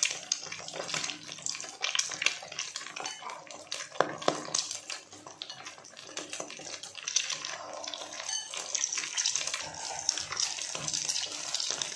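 Hot oil sizzling and crackling steadily around egg-coated potato fritters (perkedel) deep-frying in a wok, with a couple of sharper ticks about four seconds in.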